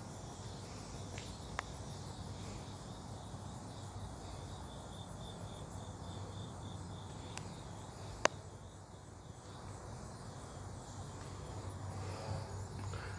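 Faint chirping of insects, with a sharp click about eight seconds in and a softer one about a second and a half in.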